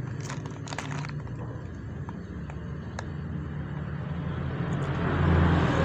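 A few light clicks, then a motor vehicle engine's steady hum that rises and grows louder near the end.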